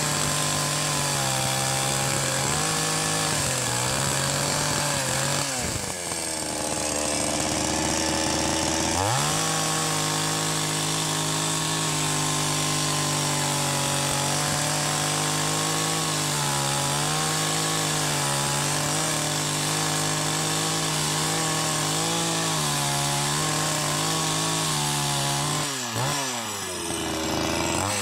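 Ogawa 16-inch two-stroke chainsaw ripping along a log under load. It drops back to idle about six seconds in, revs up again about three seconds later and cuts steadily, then falls back to idle near the end.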